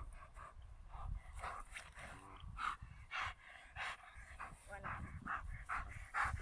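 A dog panting hard in quick, irregular breaths as it grips a bite sleeve in its mouth.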